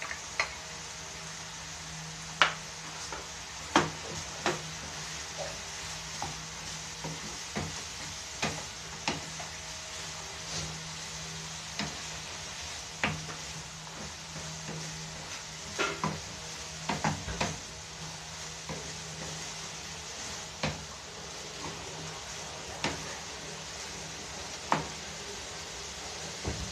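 Diced carrots, ground meat and hot dog sizzling in a frying pan as they are stirred with a wooden spatula, with irregular sharp knocks and scrapes of the spatula against the pan every second or two.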